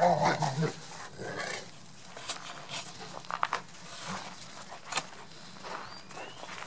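Dogs playing in snow: one vocalizes loudly at the very start, then quieter panting and the scuffle of paws on crusted snow, with a few sharp clicks.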